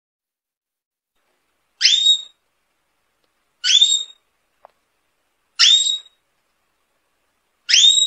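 Canary repeating one short rising whistled call, four times about two seconds apart.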